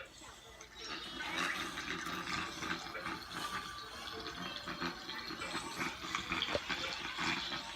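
Water rushing and churning, starting about a second in and continuing steadily.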